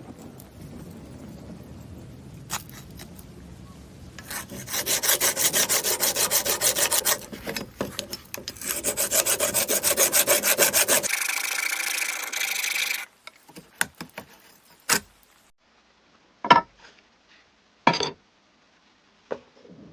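Hand abrasion on a knife during restoration, as by sanding or filing. It comes as rapid back-and-forth strokes, about five a second, in two runs with a short break between. Then comes a couple of seconds of steadier, harsher scraping, and after that several separate knocks or clicks.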